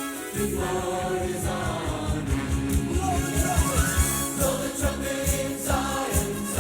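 Gospel choir singing over music with a steady beat.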